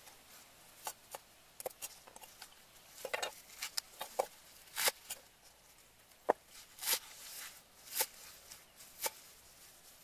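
Irregular light knocks and short rustling scrapes as bundles of green vegetable stalks are handled and laid on a wooden chopping block.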